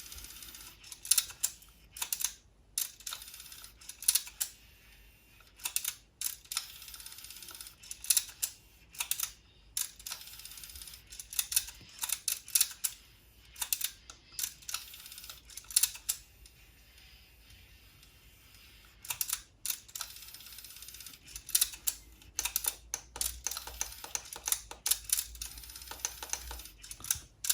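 Aiwa HS-PX303 cassette Walkman's tape mechanism and buttons clicking in irregular clusters of sharp clicks, over a faint low hum. The logic-controlled mechanism is misbehaving and switching modes on its own.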